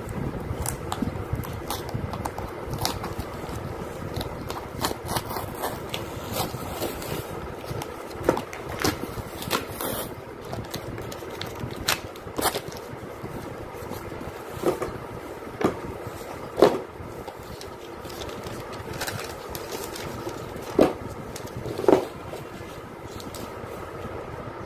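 A cardboard shipping box and a phone's retail box being handled and opened by hand. Scraping and rustling of cardboard is broken by scattered sharp taps and clicks, with several louder knocks in the second half.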